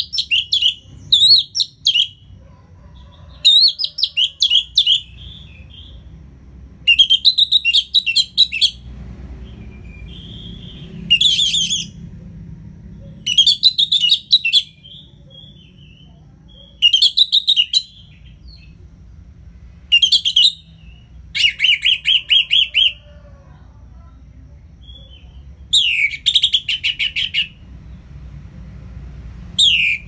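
Orange-headed thrush singing its full song in repeated phrases of rapid, high notes, each a second or two long, with short pauses between.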